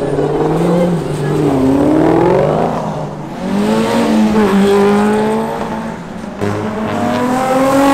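Cars accelerating away one after another on a wet road, their engines revving, the engine note climbing three times and dropping between.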